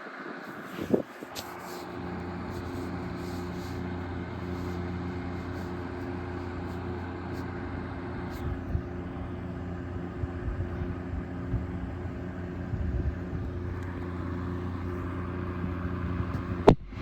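A steady, low mechanical drone, with a sharp click about a second in and another near the end.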